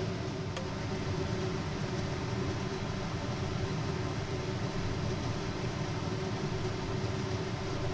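Steady hum of a kitchen exhaust fan running, with a few faint steady tones in it. Just after it begins, one light tap of a wooden spatula against the glass serving bowl.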